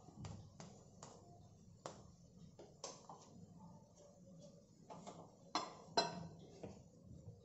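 Oil crackling faintly under a paratha shallow-frying on a hot tawa, with scattered, irregular sharp pops. The two loudest pops come close together a little past the middle.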